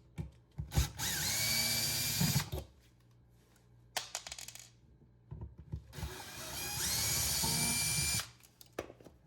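Power drill-driver running twice, each run about a second and a half, starting with a rising whine that settles to a steady pitch, backing out the mounting screws of an electrical outlet receptacle.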